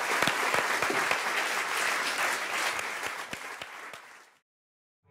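Audience applauding with many separate claps. It fades out over about a second near the end and then cuts to silence.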